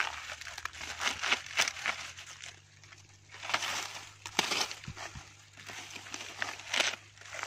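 Dry field-corn husks and leaves crackling and tearing in irregular bursts as ears on the stalk are husked by hand with a pointed wooden husking peg.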